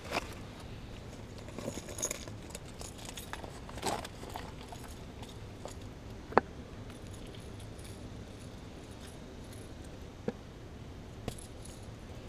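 Hands rummaging through a small bag of fishing tackle: scattered light clicks and rustles of small hard items, with one sharp click about six seconds in and another a little after ten seconds.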